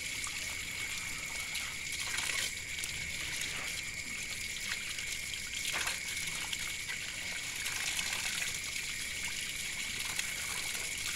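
Running water trickling and splashing steadily over a skinned snake carcass as it is rinsed by hand.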